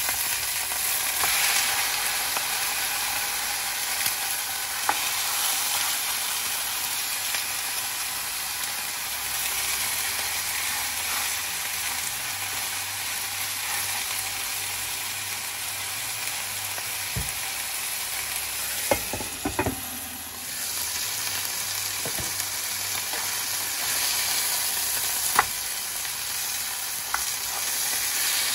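Pork chops sizzling steadily as they fry in a nonstick frying pan, with a few sharp clicks of the tongs against the pan as the chops are turned over.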